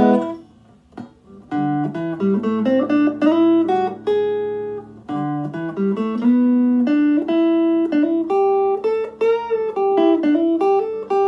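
Telecaster-style CMC Bendercaster B-bender electric guitar played on its neck pickup: a run of picked single notes and double stops, several of them bending up and back down in pitch, with brief pauses about a second in and near the middle.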